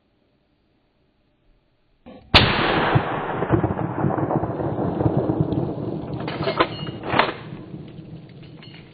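A single rifle shot about two seconds in: a sharp crack followed by a long rolling rumble that slowly fades over several seconds, with two more sharp knocks near the end.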